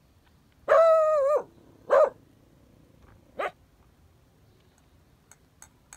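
Dog-like vocal sounds: one loud call held for under a second, then two short calls, followed near the end by a few light clicks of the tin toys being handled.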